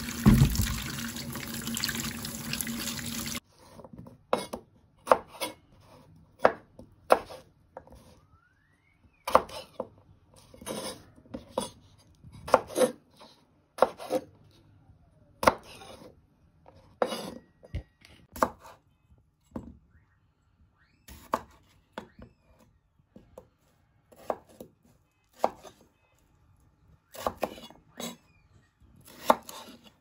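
Tap water runs over potatoes in a bowl and stops about three seconds in. Then a kitchen knife slices through raw potatoes, cutting them into chips, and strikes a wooden cutting board with a sharp knock roughly once a second.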